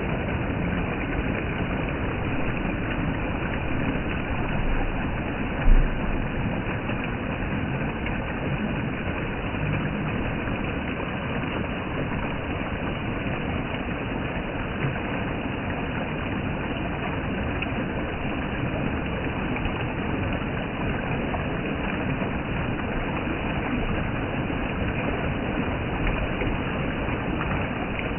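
Steady rush of flowing stream water, with a brief low thump about six seconds in.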